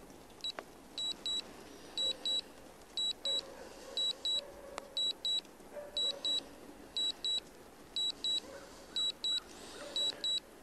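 DJI Mini 3 Pro's remote controller beeping in pairs, two short high beeps about once a second: the steady alert that return-to-home is under way.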